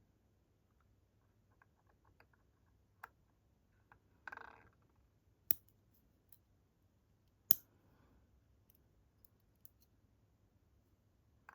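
Small metal pin tumblers of a Chubb padlock being handled and fitted back into the lock: scattered light ticks, a short scrape about four seconds in, and two sharp metal clicks about two seconds apart.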